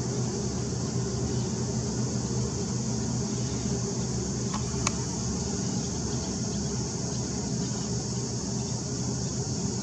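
Steady low drone of the cruise ship's diesel engines as it heads out, under a constant high buzz of cicadas. A single short click comes about halfway through.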